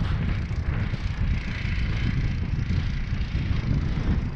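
Wind buffeting the microphone, with the drone of a homemade snow vehicle's 20 hp engine running some way off.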